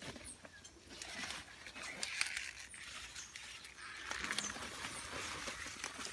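Leek leaves rustling and crackling, and the roots tearing out of the soil as leeks are pulled up by hand. The rustling swells twice, about a second in and again about four seconds in.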